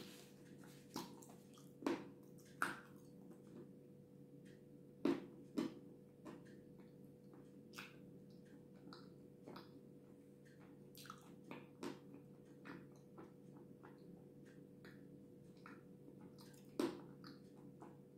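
Close-up wet mouth sounds of eating soft cream cake: irregular sticky smacks and clicks of lips and tongue while chewing, with the sharpest about 2, 5 and 17 seconds in. A steady low hum lies underneath.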